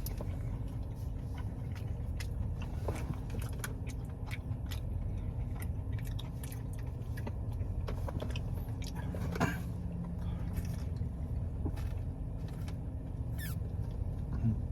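Close-up chewing of a soft fried breaded cheese bite, with small wet mouth clicks and smacks scattered throughout, over a steady low rumble.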